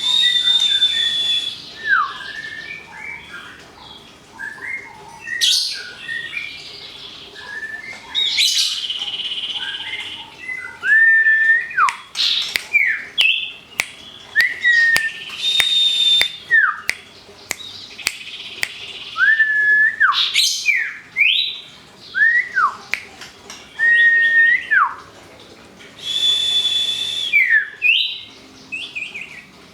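White-rumped shama and common iora singing together: clear whistles that hold a pitch and then slide down, repeated many times, mixed with quick chirps and harsh high rasping notes.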